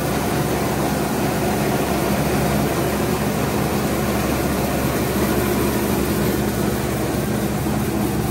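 Rice milling machine running steadily, a constant dense mechanical noise with a steady low hum.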